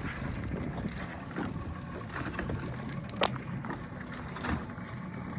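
A fishing boat's motor running steadily at sea, with wind and water noise and scattered knocks, the sharpest about three seconds in.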